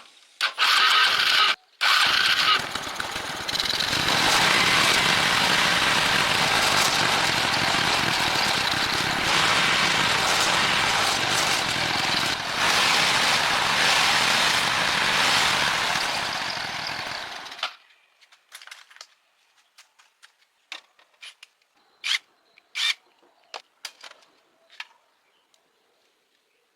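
Loud, steady mechanical noise that cuts off abruptly about seventeen seconds in, followed by scattered light clicks and taps.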